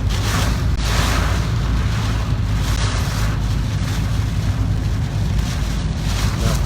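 Car driving on wet roads in heavy typhoon rain: a steady low rumble of the car with the hiss of rain and tyre spray, swelling several times.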